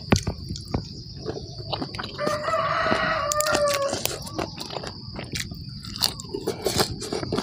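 A rooster crowing once: a single long call of about two seconds, starting about two seconds in. Close chewing clicks from eating, and a steady high insect drone, run underneath.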